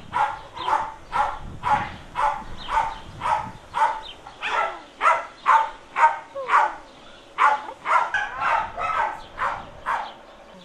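A dog barking over and over, about two barks a second, with a few short whines in between; the barking stops near the end.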